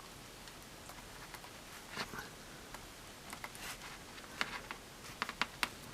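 Faint, scattered clicks and taps of a small plastic action figure's parts being handled as a swap-on hand is fitted, the clicks coming more often toward the end.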